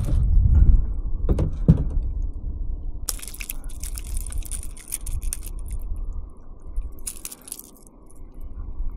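Wind buffeting the microphone, with clicks, scraping and crackly rattling as a small fish is handled and the hook worked out of its mouth; the rattling comes in bursts about three seconds in and again about seven seconds in.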